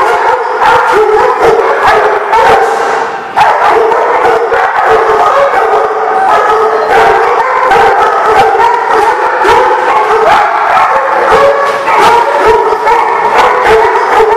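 Several dogs barking and yipping at once, a continuous din of overlapping barks with a brief lull about three seconds in.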